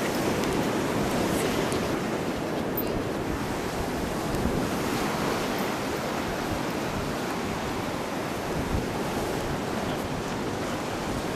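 Atlantic surf washing onto a sand beach: a steady, even rush of waves.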